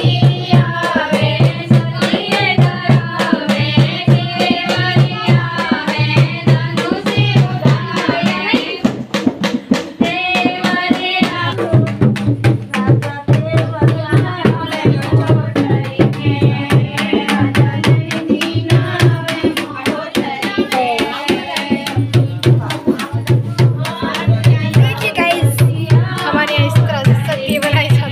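A group of women singing a folk song together over a hand drum's steady low beat. The drum drops out for a couple of seconds about a third of the way through, then comes back.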